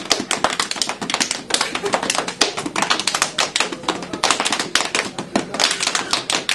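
A small group of people clapping their hands, irregular overlapping claps at several a second.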